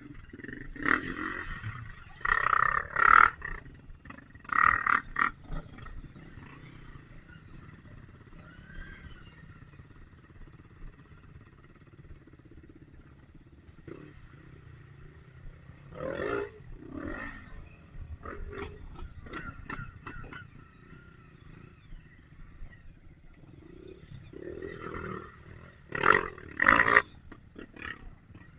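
Dirt bike engine revving hard in repeated bursts, near the start, in the middle and near the end, heard muffled through a rain cover on the camera.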